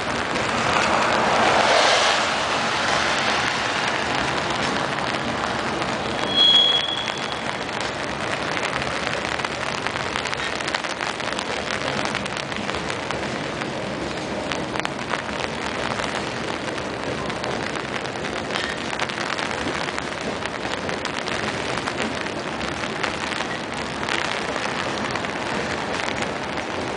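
Heavy rain falling on an umbrella, with a freight train's cars rolling past on the rails under it, as a steady noise. A short high squeal sounds about six seconds in.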